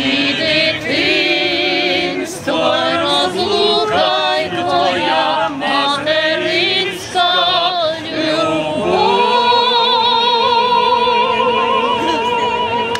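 A man and a woman singing a Ukrainian song together, unaccompanied and with wide vibrato, settling into one long held note about nine seconds in.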